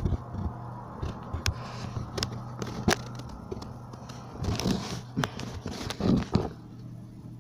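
Irregular clicks, knocks and scraping close to the microphone, over a low steady hum that stops a little past halfway.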